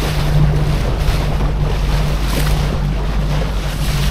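Boat engine running steadily under way, with water rushing past the hull and wind buffeting the microphone.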